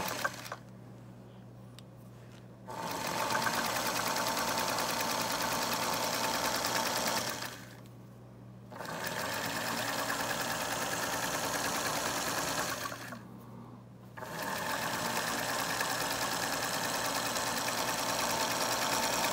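Singer 221 Featherweight electric sewing machine stitching through fabric in three runs of a few seconds each, with short pauses between, sewing forward and in reverse.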